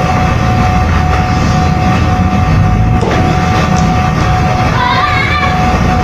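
Steady low mechanical rumble with a constant hum running through it.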